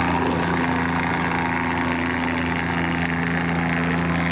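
Motor boat's engine running at a steady pitch as the boat gets under way from the quay.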